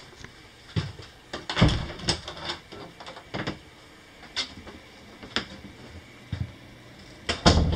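Footsteps and knocks on the hollow floor of a fifth-wheel trailer as someone walks through it: irregular thuds about one a second, louder twice.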